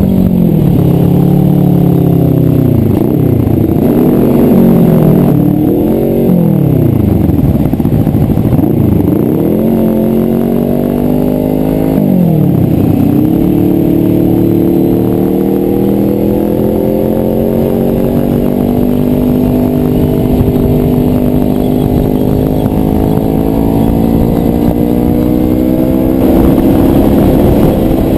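Kawasaki ER-6 motorcycle's 649 cc parallel-twin engine under way. Its revs drop and climb back about four times in the first half, then rise slowly and steadily through the rest.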